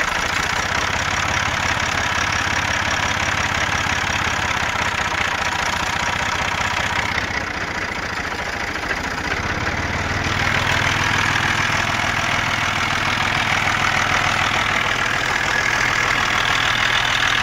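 Massey Ferguson 135 tractor engine running steadily, getting louder and higher-pitched about ten seconds in.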